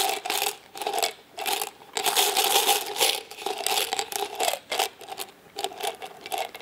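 Pieces of chewing gum rattling inside a plastic gum tub as it is shaken, in irregular bursts with short pauses.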